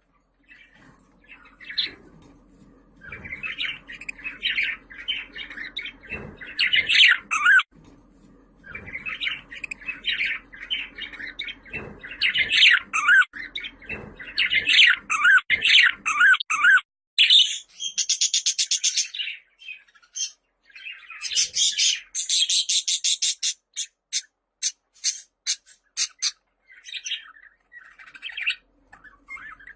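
Budgerigar warbling and chattering busily. A little past halfway it turns to fast runs of clicking chirps broken by short pauses.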